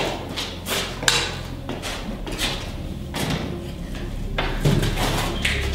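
A series of irregular knocks and clatters over a low steady hum, which swells near the end.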